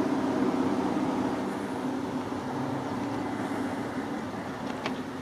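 Steady low mechanical hum of distant engines, holding a few low tones without change.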